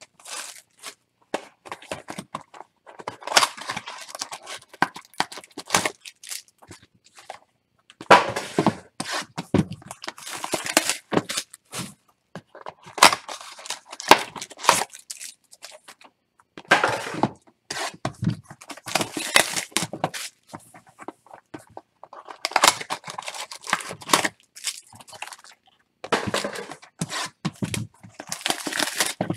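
Trading card pack wrappers being torn open by hand, tearing and crinkling in repeated short bursts with brief pauses between.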